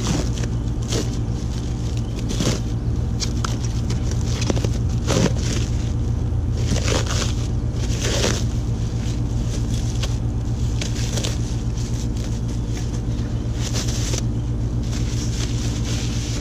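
Plastic wrapping crinkling in short bouts, about ten times, as it is worked off a metal tent pole, over a steady low hum.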